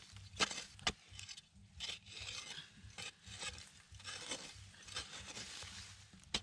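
A long-handled metal digging blade striking and scraping into dry, hard soil to dig out a tarantula burrow. Two sharp strikes come near the start, then rough scraping and scratching of blade against earth, and another sharp strike near the end.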